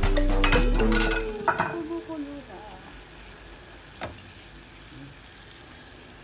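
Background music fades out in the first second and a half, leaving the steady hiss of a bun steamer on the stove, broken by a couple of light clicks.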